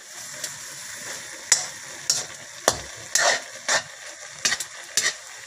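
Metal ladle scraping and knocking against a metal wok as pancit noodles are stirred, about seven sharp strokes over a steady sizzle from the pan.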